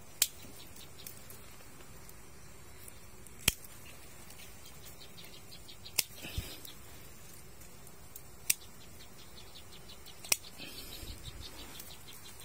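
Hand shears snipping twigs and small branches: five sharp, short snips two to three seconds apart. Insects chirr faintly and steadily in the background.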